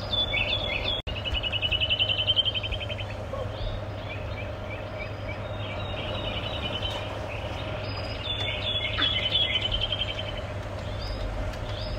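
Small birds singing in the trees: repeated fast, high trilled phrases, over a steady low hum.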